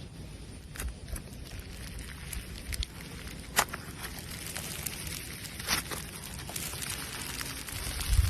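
Slime being squeezed and stretched by hand, giving scattered sticky pops and crackles over a low background, with one sharper pop about three and a half seconds in.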